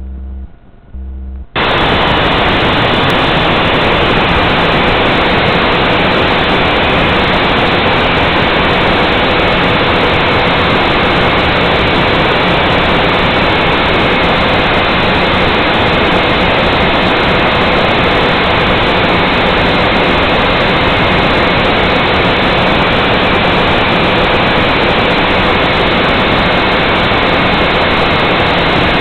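A few pulses of music, then about a second and a half in, the Nine Eagles Galaxy Visitor 3 quadcopter's motors and propellers start up and whir steadily with a faint whine. The sound is loud and close, as picked up by the drone's own onboard camera in flight.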